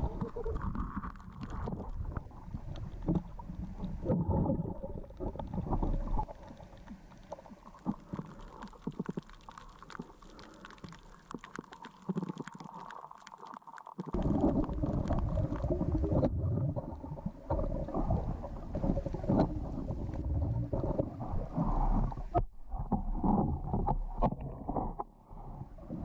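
Muffled underwater sound from a camera in a waterproof housing: uneven low rumbling of water movement with scattered clicks and knocks. It drops quieter for several seconds in the middle, then picks up again.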